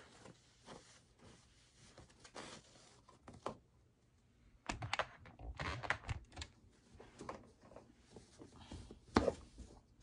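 Fabric rustling and soft knocks of a mattress topper being handled as its elastic corner straps are pulled over the mattress, with a louder burst of handling about halfway through and a single sharp knock near the end.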